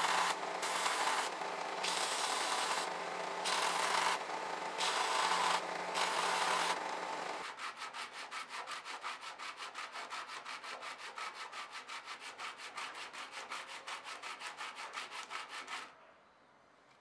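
Belt sander running, with a small workpiece pressed to the belt in several short passes; the grinding swells with each contact. About seven and a half seconds in it gives way to a slotted aluminium plate rubbed by hand on wet sandpaper in quick, even back-and-forth strokes, which stop shortly before the end.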